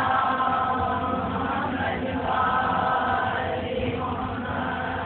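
Chanting: a melodic vocal line held in about three long, slowly wavering phrases.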